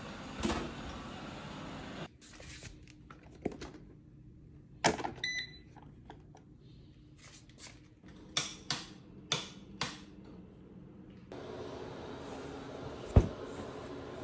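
A short electronic beep from a Eufy robot vacuum at its charging dock, among scattered sharp clicks and light knocks. Near the end a steady room hum comes in, with one loud thump.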